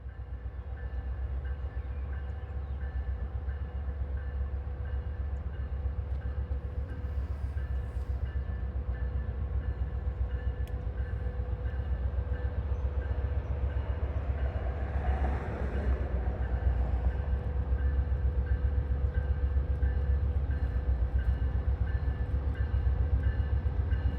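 Amtrak P42DC diesel locomotive rumbling steadily as it pulls a passenger train into the station, slowly getting louder, with a steady whine over the engine note. A short hiss swells and fades about fifteen seconds in.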